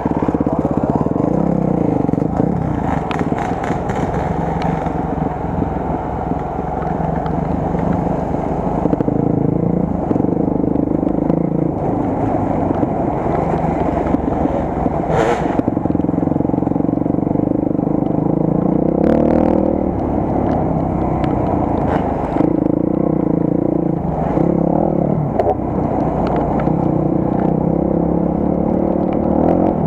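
Enduro motorcycle engine running while riding off-road, its pitch rising and falling with the throttle. A few short knocks and scrapes stand out, around 3 to 4 seconds in, about halfway, and near 19 and 22 seconds.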